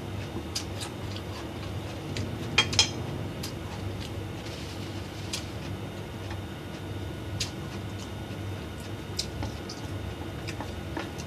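Metal cutlery clinking and scraping against a glass plate of fried noodles during eating: scattered sharp clicks, the loudest a pair close together about two and a half seconds in, over a steady low hum.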